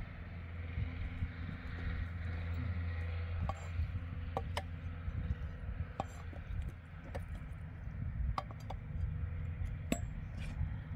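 Knife chopping and tapping on a stone slab, a few scattered sharp knocks spaced a second or two apart, over a steady low hum.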